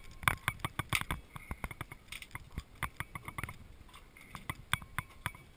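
Scattered light clicks and knocks, several a second, thickest in the first couple of seconds, as a scuba diver handles his mask, hoses and chest buckles.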